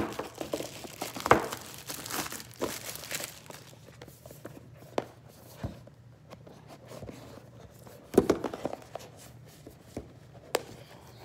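Crinkling and rustling of packaging with scattered clicks as a small earring box is opened by hand, with two louder handling noises about a second in and about eight seconds in.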